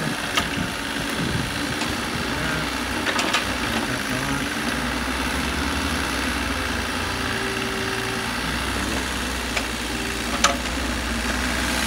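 Kubota KH-027 mini excavator's diesel engine running steadily, with a few short sharp knocks as the machine works.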